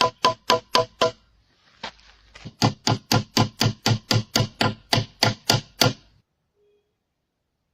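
Quick, even blows of a hand tool striking wood, about four a second. The first run carries a ringing tone. After a pause of about a second and a half, a second run of blows stops about six seconds in.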